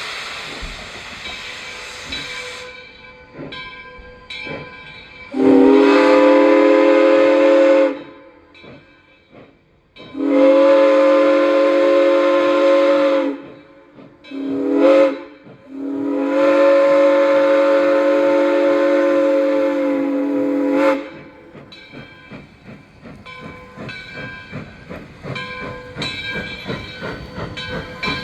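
Steam whistle of Arcade & Attica 2-8-0 locomotive No. 18 sounding four blasts, long, long, short, long: the signal for a grade crossing. Steam hisses before the whistle, and a rattling, clanking rhythm of the moving train follows it.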